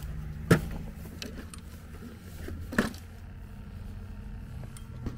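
Small 50cc scooter engine idling steadily. Two sharp clunks, the louder about half a second in and another near the three-second mark, come from the scooter's plastic seat and storage compartment being handled.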